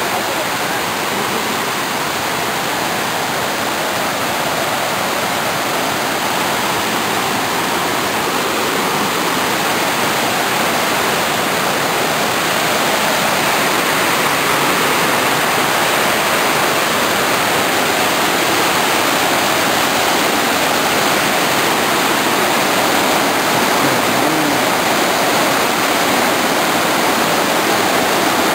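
Vachirathan Waterfall's water pouring down, a loud, steady rushing noise that grows slightly louder over the stretch.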